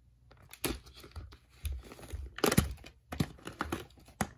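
Plastic clamshell VHS case being handled and opened, and the videocassette pulled out of it: an irregular run of clicks, knocks and rustles, loudest about halfway through.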